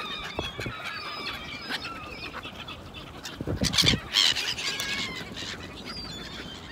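A flock of black-headed gulls calls over and over in short, high, squealing cries. Close wing flaps from birds crowding a hand that holds food burst in loudly about three and a half seconds in.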